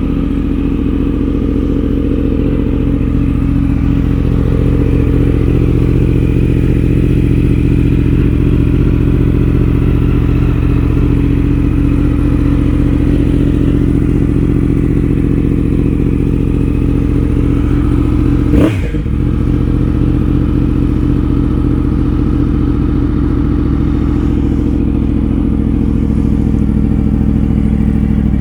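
Yamaha R1's crossplane inline-four engine running at a fairly steady engine speed while the bike is ridden. There is a single sharp knock about two-thirds of the way through.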